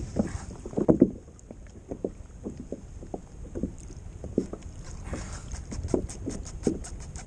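Small waves slapping irregularly against a kayak hull while a baitcasting reel is cranked in against a fighting fish. A fast run of light ticks comes in during the second half.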